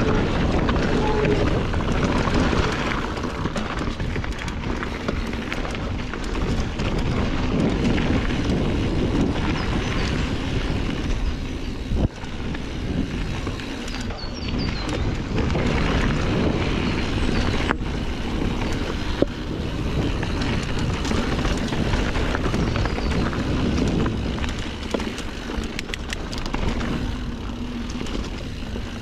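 Norco Sight A2 full-suspension mountain bike ridden over dirt and rocky singletrack: knobby tyres rolling and crunching, the bike rattling over bumps, and wind rumbling on the action-camera microphone. A sharp knock stands out near the middle and another a few seconds later.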